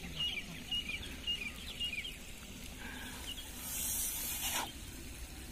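Small birds chirping in short repeated calls, then a long hissing draw of breath, about a second, as a man pulls hard on a ganja chillum held in cupped hands.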